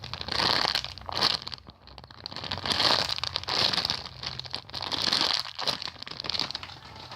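Plastic packaging crinkling in several bursts as squishy toys in their plastic bags are handled.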